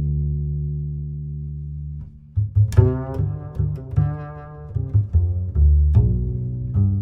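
Background music: low bowed strings holding a note, then plucked bass and string notes in a steady rhythm from about two and a half seconds in.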